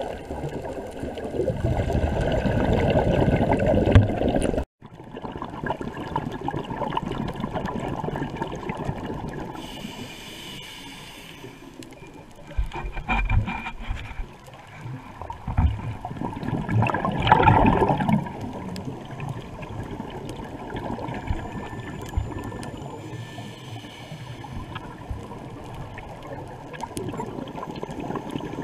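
Underwater sound on a scuba dive: bubbling and gurgling from divers' regulator exhaust bubbles over a steady water hiss. A loud burst of bubbling in the first few seconds cuts off abruptly, and two shorter bursts come later.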